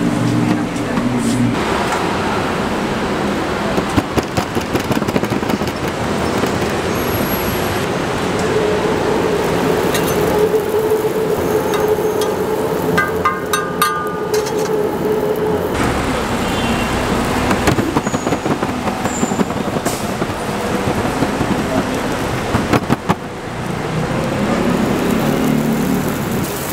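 Steady street traffic noise, with roti dough sizzling as it fries in oil on a flat griddle and occasional clicks of a metal spatula.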